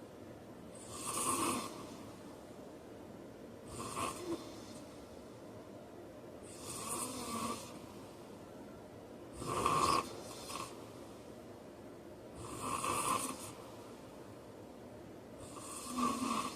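A sleeping man snoring, six snores about every three seconds, each a short noisy swell with quieter breathing between.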